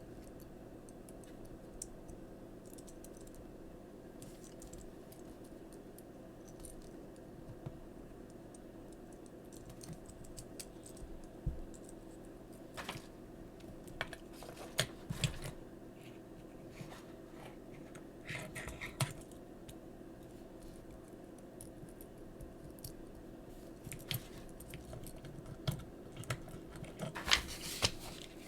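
Small plastic Transformers figure being handled and transformed by hand: scattered light plastic clicks and snaps of its joints and parts, sparse at first and coming more often in the second half, over a steady low hum.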